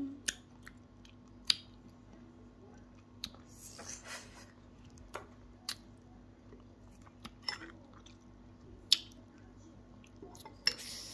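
A person eating fresh grapes: wet chewing and biting with scattered sharp clicks, over a steady low hum.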